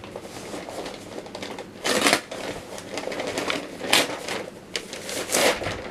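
Rustling and crinkling of packing and clothing as things are handled and lifted out of a cardboard box, with three louder rustles about two, four and five and a half seconds in.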